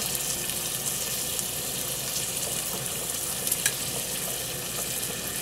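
Diced pancetta sizzling steadily in olive oil in a frying pan over low heat as its fat renders, with a couple of faint crackles about three and a half seconds in.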